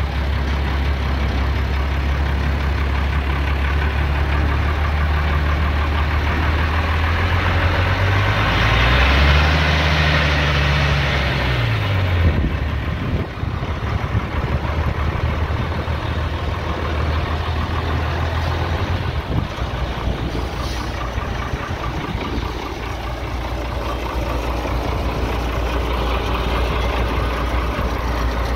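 Shaktiman (licence-built MAN 415) military diesel truck engine idling steadily, revved once about eight seconds in and let fall back, then running on with a less even note.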